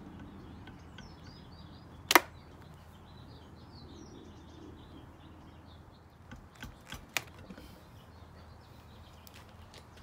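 Sharp metallic clicks of needle-nose pliers working the C-clips off the steel battery-cover pins of a Segway X260: one loud snap about two seconds in, then several lighter clicks a few seconds later.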